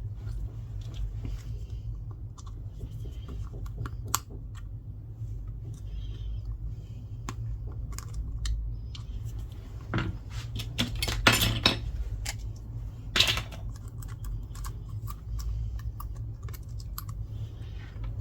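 Small clicks, taps and scrapes of repair tools prying a taped-down part loose inside an iPhone 15 Plus. The loudest clusters come about ten seconds in and again near thirteen seconds, over a steady low hum.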